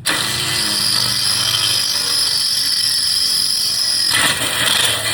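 A power tool running loudly and steadily. It starts abruptly and changes slightly about four seconds in.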